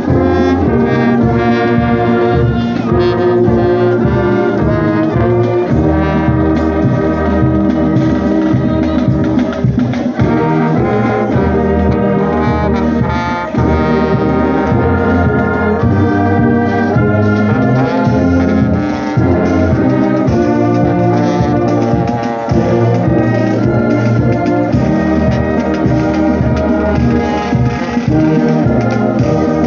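Brass band playing a tune: tubas and sousaphones carry a low bass line in a steady beat under trumpets and trombones.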